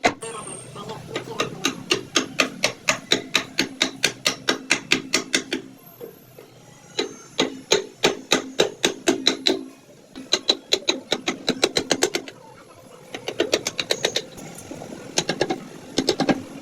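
A wood-carving chisel being driven into wood by quick taps, about four or five strikes a second, in runs of a few seconds separated by short pauses.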